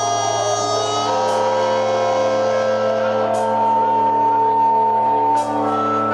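Live rock band holding long sustained notes over a steady low hum, without a clear beat.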